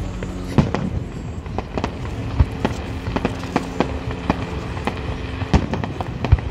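Aerial fireworks exploding in an irregular run of bangs and crackles, with a few heavier booms standing out.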